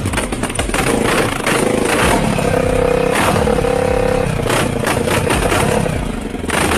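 A vehicle engine running and revving, with clattering knocks throughout.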